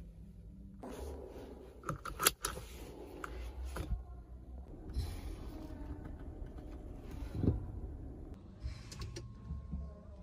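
Car seat belt being fastened: the webbing slides across and the metal latch plate clicks into the buckle about two seconds in. Soft rustling and a few light knocks follow.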